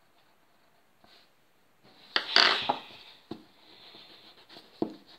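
A pencil is set down on a tabletop with a sharp click, followed by a short rustle of paper being handled and a few light knocks on the table.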